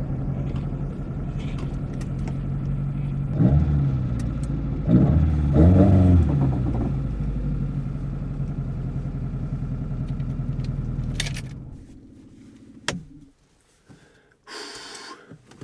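Lada VAZ 2103's 1600cc four-cylinder with twin Weber DCOE 40 carburettors idling, blipped briefly about three and a half seconds in and again around five to six seconds in. It is switched off about eleven seconds in and runs down. Near the end come a sharp click and a short rattle.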